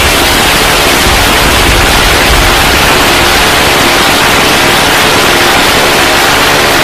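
Jet aircraft in flight: a loud, steady rushing roar with a low rumble underneath, even throughout, with no separate shots or pops.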